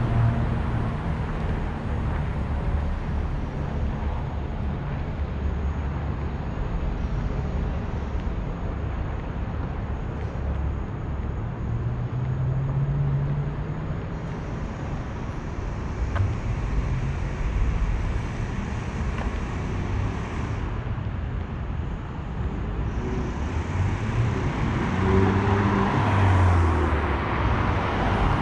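City street traffic: cars and other vehicles running and passing, with steady engine and tyre noise. One vehicle's engine note rises a little under halfway through, and the traffic grows louder near the end as another vehicle comes close.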